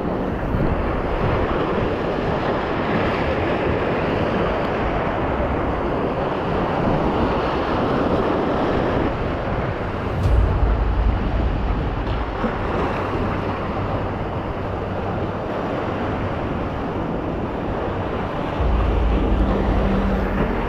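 Ocean waves and surf washing steadily, with wind buffeting the microphone in heavier gusts about halfway through and again near the end.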